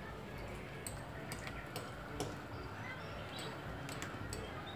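Steady background hiss with scattered short, high chirps and ticks.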